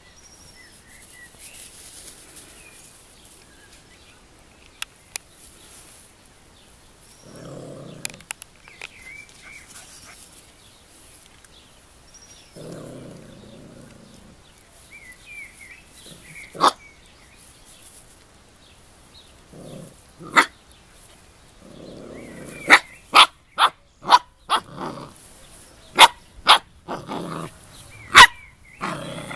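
Puppies at play: a few low growls, then in the last third a quick run of sharp, high puppy barks and yips.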